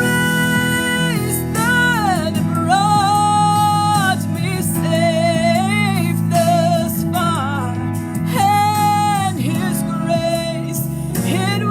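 Gospel music: a single voice sings long held, slightly wavering notes over steady instrumental accompaniment.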